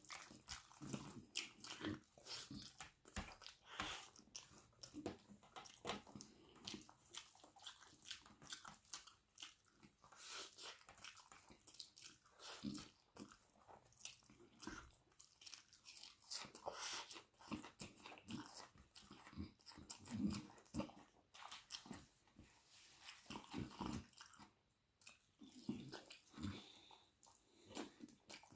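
Close-miked eating sounds: steady irregular chewing with crunchy bites and wet mouth clicks, from a meal of chicken wing curry, rice and raw onion.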